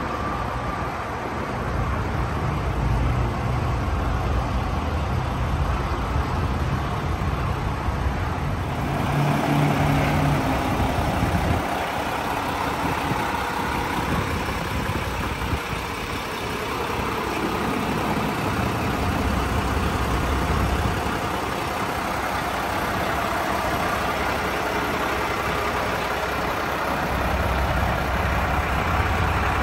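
A 2017 Mack CXU613's MP8 diesel engine, a 13-litre inline six, idling steadily. The low rumble fades somewhat about a third of the way in and comes back stronger near the end.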